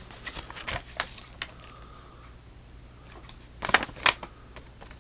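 Paper and packaging being handled by hand: scattered rustles and light clicks, with a louder cluster of clatter about four seconds in.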